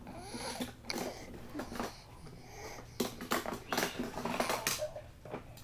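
A sleeping baby snoring, a series of short breaths at uneven intervals.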